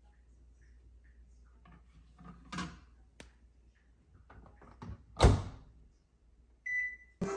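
A few faint knocks and clicks, then one loud, deep thump about five seconds in, followed near the end by a short, steady high-pitched beep.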